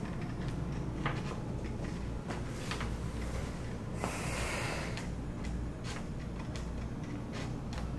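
Sheets of paper being handled and folded: scattered crisp crinkles and a longer rustle about four seconds in, over a steady low hum.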